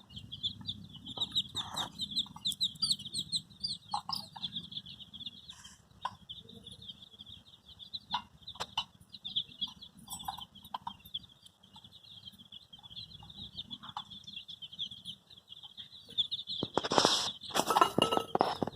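A group of baby chicks peeping constantly, a dense stream of rapid high-pitched chirps, with a few lower clucking calls mixed in. Near the end come a couple of loud rustling noises.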